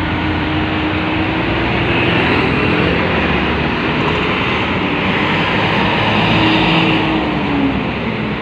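Strong wind blowing on a phone microphone as volcanic ash sweeps down a street, with traffic passing. A steady, loud rushing noise, with a faint low engine tone that drops in pitch near the end.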